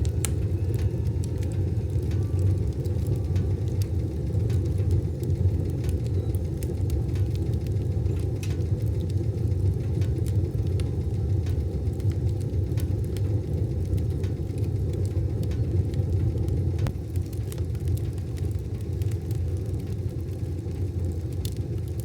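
Wood fire burning in a wood stove: a steady low rumble with a few sparse sharp crackles and pops, one of the clearer ones near the end.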